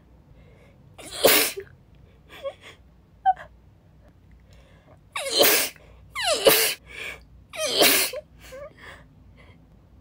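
A woman sneezing four times, sudden and loud, with short gasping in-breaths between the sneezes.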